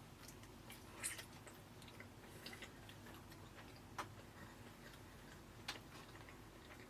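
Faint chewing of a burger, heard as a few soft, scattered mouth clicks and smacks over near silence.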